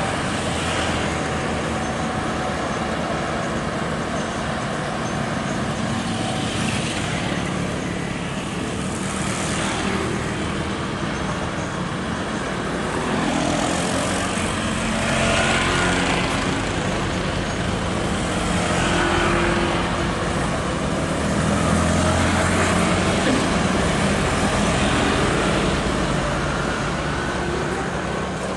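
Scania R580's V8 diesel engine running as the tractor unit slowly hauls a heavy, roughly 60-tonne bulldozer on a lowboy trailer, mixed with passing road traffic and motorbikes. The noise grows louder around the middle and again later on.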